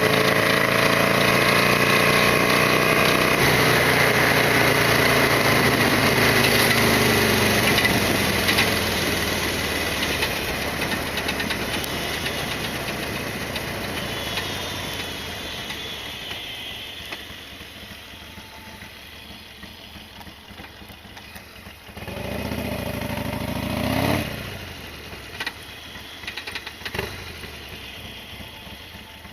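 Harley-Davidson Sportster XL1200R's V-twin engine running. Its note falls and fades over the first half as the bike slows, then goes on more quietly. About 22 seconds in there is a short burst whose pitch rises, followed by a few light ticks.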